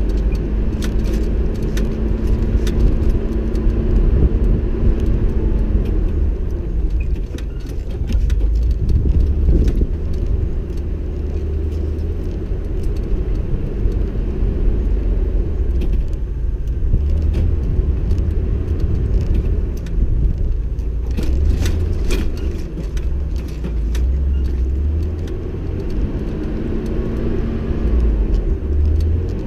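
Off-road vehicle driving over a rough dirt track: a steady low rumble from engine and tyres, the engine note rising and falling with the throttle. Loose items rattle and the body knocks over bumps, most thickly near the start and about two-thirds of the way in.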